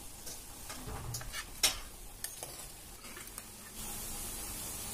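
Perforated steel spoon scooping raw prawns out of water in a clay pot and onto a steel plate: a handful of light clinks and knocks, the sharpest about one and a half seconds in.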